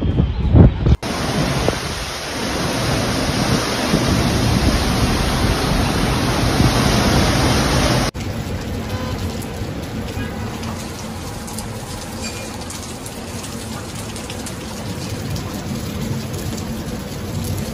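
Heavy rain and wind of a severe thunderstorm, a steady rushing noise that drops in level about eight seconds in. It opens with about a second of loud low rumbling.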